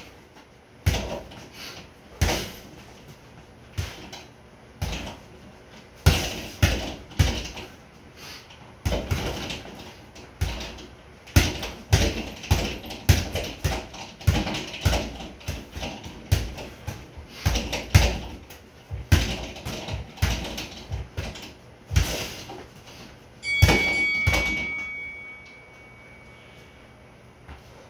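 Boxing gloves punching a sideways-hung double-end bag: quick, irregular slaps and thuds as the bag springs back and forth between strikes. About three-quarters of the way in there is a loud ringing that fades over a couple of seconds, and the punching stops.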